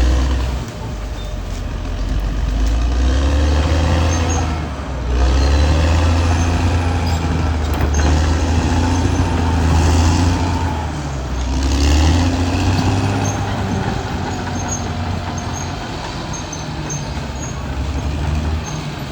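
Caterpillar D6R XL bulldozer's diesel engine working under load, its pitch and loudness rising and easing in several swells.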